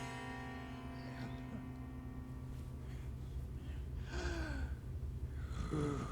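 Two short gasps from a person's voice, each falling in pitch, about four and six seconds in, over a low steady hum.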